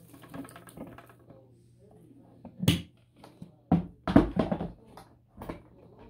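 Hard plastic knocks and clicks as the clear dust canister of a bagless upright vacuum is handled and snapped back into the vacuum. A handful of sharp knocks come from about two and a half seconds in, some close together. The vacuum's motor is off.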